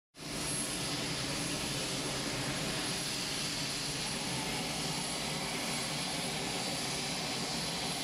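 Steady aircraft turbine engine noise with a thin high-pitched whine held throughout.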